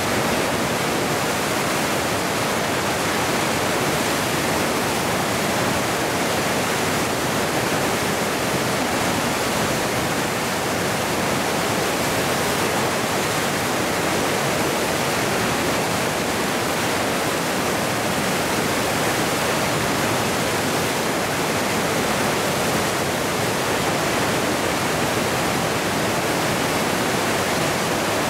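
Whitewater of Lava Falls rapid on the Colorado River rushing as a steady, unbroken roar of churning water.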